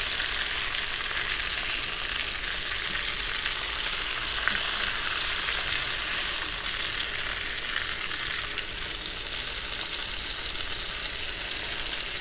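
Chicken thighs sizzling in hot rendered fat in a stainless steel pan: a steady frying hiss that carries on after the burner has been switched off.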